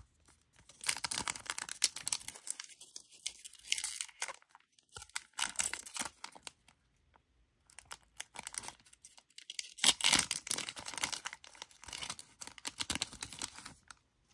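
Plastic trading-card pack wrappers being torn open and crinkled by hand, in two bouts with a short pause about halfway through.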